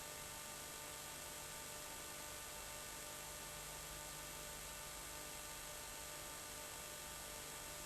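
Steady faint hiss with a low electrical hum, unchanging throughout: the recording's own noise floor, with no other sound.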